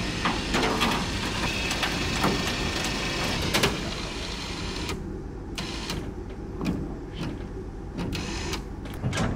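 Powered lift gate on the back of a bus car hauler lowering, its motor running steadily and then cutting off about five seconds in. A low steady hum from the generator powering it goes on underneath, with a few light metallic knocks afterwards.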